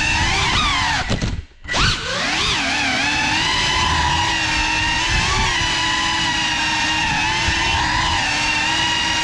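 A 3-inch FPV quadcopter's brushless motors and propellers whine at a steady pitch. About a second and a half in, the throttle briefly cuts out, then punches back up with the pitch wavering before it settles.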